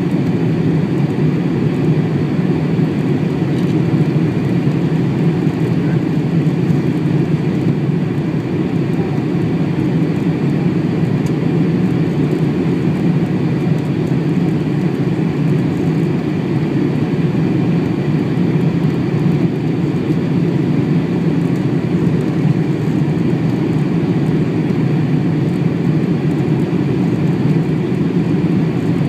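Boeing 747 cabin noise on final approach with the flaps extended: engine and airflow noise heard from a window seat over the wing, a steady low rumble that stays even throughout.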